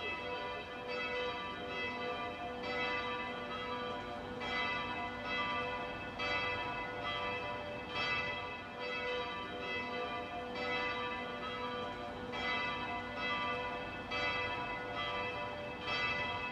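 Church bells of Mariazell Basilica ringing, a new stroke every second or two, each tone ringing on and overlapping the next.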